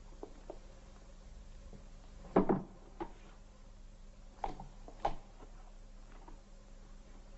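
Hands patting and slapping down a man's heavy coat in a body search: a handful of dull thumps, the loudest about two and a half seconds in, over a faint low hum.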